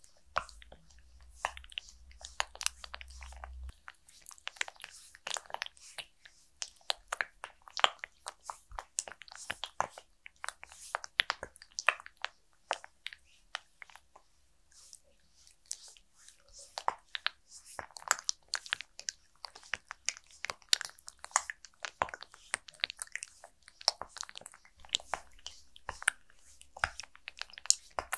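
Fingertips and palms pressing and sliding over a mannequin head's slick, product-coated face in a facial massage. They make a rapid, irregular run of sticky, wet crackles and small clicks.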